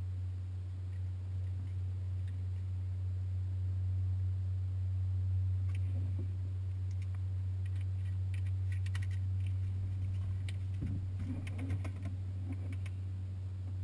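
Cessna 172R's four-cylinder Lycoming engine idling with the aircraft at a standstill, a steady low hum. Light clicks and rattles come about six seconds in and again in a cluster near the end.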